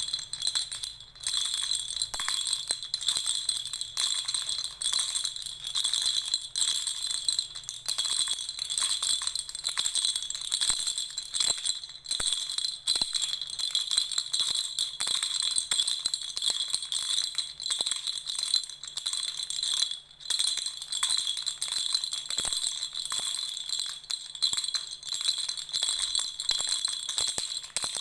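Lollipop-shaped baby rattle being shaken continuously, a dense jingling clatter with a few brief breaks, the clearest about two-thirds of the way through.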